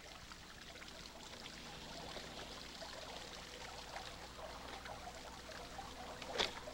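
Faint, steady trickling, water-like background noise under a faint steady hum, with a brief voice-like sound near the end.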